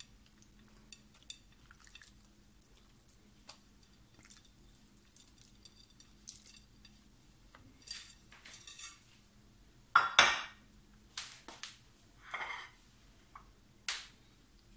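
Pieces of raw beef on the bone being set into a large cooking pot, with scattered soft knocks and clinks of meat, pot and dishes. A few louder knocks and clatters come about ten to twelve seconds in and once more near the end.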